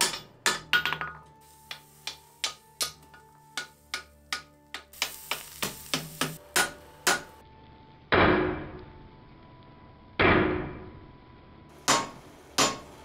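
Hand hammer striking a red-hot Damascus steel billet on an anvil, folded a third time from 64 to 128 layers. First comes a run of sharp ringing blows, about two a second. Then two heavier blows with a longer ring come a couple of seconds apart, and a few more sharp strikes follow near the end.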